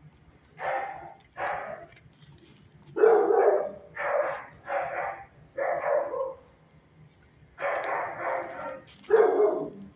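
Dog barking in a shelter kennel: about nine short, loud barks in irregular groups.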